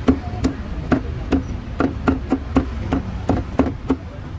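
Heavy cleaver chopping meat on a wooden chopping block: a run of about a dozen sharp chops, about three a second, each with a dull wooden thud.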